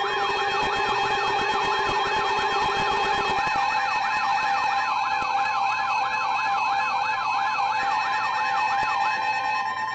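Emergency alert tones from radio receivers overlapping. Steady alert tones sound together with a fast siren-like warble sweeping up and down about three times a second. A lower steady tone drops out about three seconds in, and the warble stops shortly before the end.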